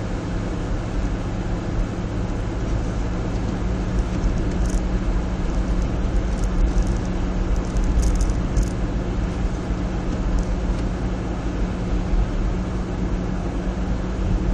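Steady engine hum and road rumble inside a car driving on a snow-covered street, with a few brief faint high crackles in the middle.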